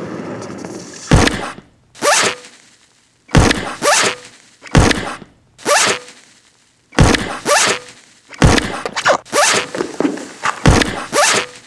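A series of heavy thunks, about a dozen irregularly spaced impacts. A brief faint ringing tone follows several of them.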